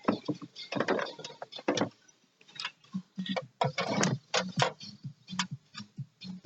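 Irregular run of sharp mechanical clicks and clacks from hand tools and parts being worked during jet ski repair, pausing briefly about two seconds in.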